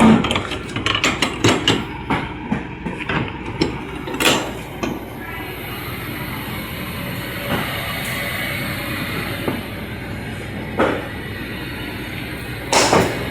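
Refrigerated truck's reefer unit running steadily, with a quick run of knocks and clicks over the first four seconds and a few single knocks later, the loudest near the end.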